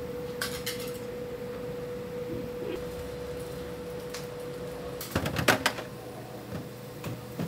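Breakfast-shop kitchen sounds: a steady hum with a few light clicks, then a short run of sharp clattering knocks about five seconds in.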